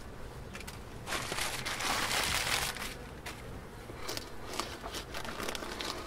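Bee-chewed newspaper being scraped and crumpled off the top of a wooden beehive box by gloved hands. A dense crinkling rustle starts about a second in and lasts nearly two seconds, then gives way to lighter scratches and crackles.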